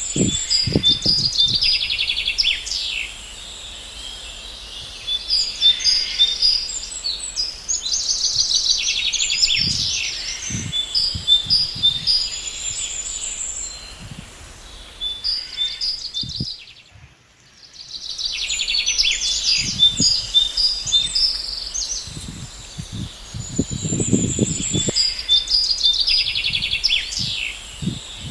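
Songbirds chirping and trilling, many quick high calls overlapping, with a few soft low thumps. The sound fades almost out about two-thirds of the way through, then comes back.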